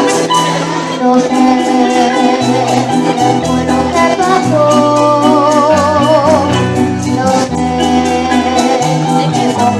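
Live Venezuelan llanera music in an entreverado rhythm: a harp-and-maracas ensemble with a moving bass line and a steady shaken rhythm, under a sung melody with strong vibrato about halfway through.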